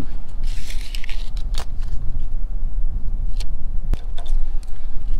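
Wind buffeting the microphone as a steady low rumble. Blue painter's tape is pulled off its roll with a rasping rip from about half a second to just over a second in, and a few sharp clicks come as it is pressed onto the metal flashing.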